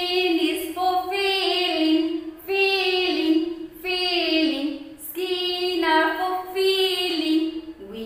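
A woman singing a children's action rhyme about the five sense organs, unaccompanied, in short phrases of about a second each.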